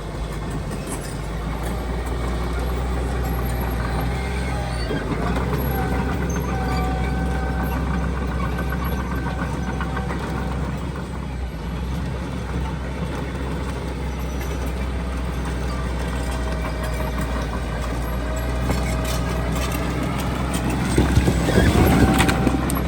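Diesel engine of heavy earthmoving machinery running steadily under load, with a steady whine over the engine note and a louder, rougher stretch near the end.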